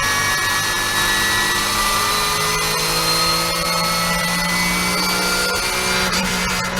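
Porsche 991.1 Cup car's naturally aspirated flat-six engine running hard at high revs on track, its pitch drifting slowly down.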